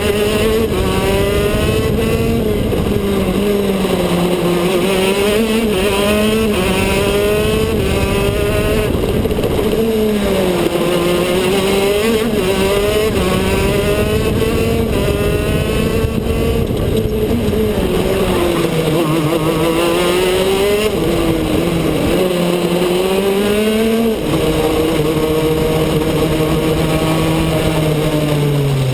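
KZ2 kart's 125cc two-stroke single-cylinder engine running at racing speed, its note rising and falling with the throttle. Its pitch steps down sharply about five seconds before the end.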